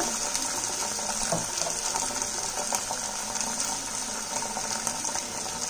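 Steady sizzling of capsicum and other vegetables frying in hot oil in a pan.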